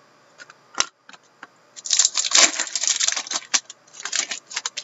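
Foil wrapper of a hockey card pack crinkling as it is torn open: a single click about a second in, then a dense crackle from about two seconds in, with scattered crinkles after it.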